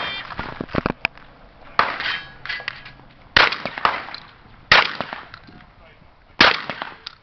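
Five shotgun shots fired at a steady pace, about one every one and a half seconds, with a short metallic ring after the first two shots as steel targets are struck.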